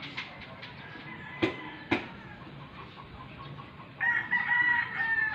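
Two sharp knocks about half a second apart, then a rooster crowing once, a long held call starting about four seconds in.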